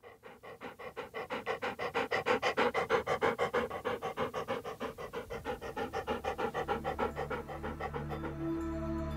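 Sled dog panting fast, about five pants a second, loudest a couple of seconds in. Soft music fades in over the last few seconds.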